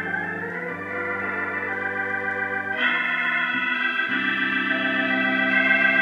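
Organ music played from a record on a turntable through a vintage Tru-Sonic loudspeaker: held chords that change about three seconds in and again about a second later.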